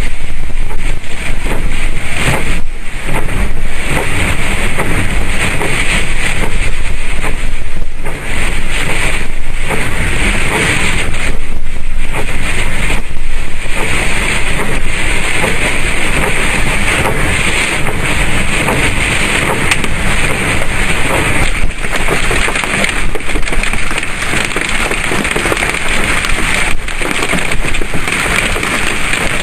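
Strong storm wind rushing and buffeting the microphone, loud and unbroken apart from brief lulls between gusts.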